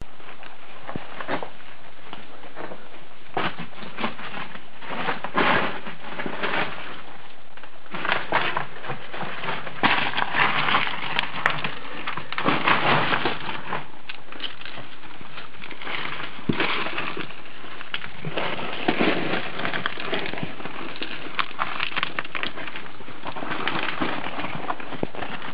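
Irregular crunching and scraping of footsteps on loose rock rubble, in clusters, over a steady hiss.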